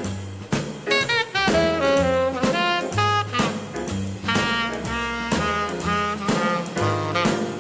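Background jazz music: a horn melody over a bass line and a steady drum beat of about two hits a second.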